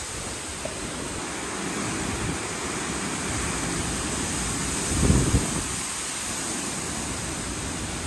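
Hurricane wind and rain, a steady rushing noise with wind buffeting the microphone. A louder low gust comes about five seconds in.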